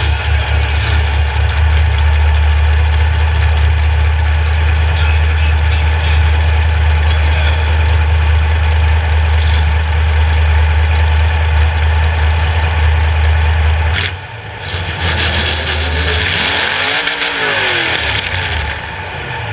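Demolition derby car engine running with a heavy, steady low rumble. About two-thirds through, a sharp click comes and the rumble drops away; near the end an engine revs up and back down once.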